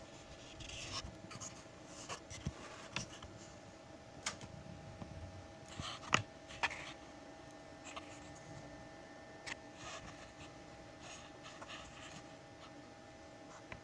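Light handling noises: scattered soft taps, clicks and rubbing, with one sharper click about six seconds in, over a faint steady hum.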